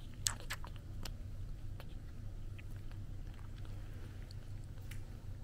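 Baby monkey suckling milk from a feeding bottle: small wet sucking clicks, bunched together near the start and then scattered, over a steady low hum.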